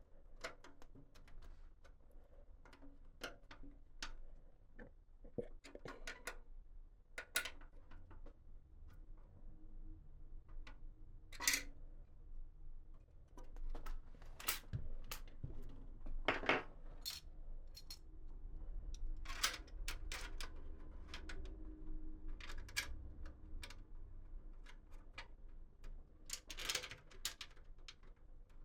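Irregular clicks, taps and clatters of small hard parts being handled and fitted, a few louder knocks among many light ticks.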